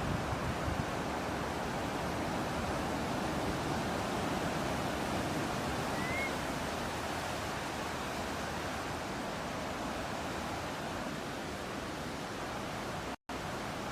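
Ocean surf and wind making a steady, even wash of noise. A single faint bird chirp rises briefly about six seconds in, and the sound cuts out for an instant near the end.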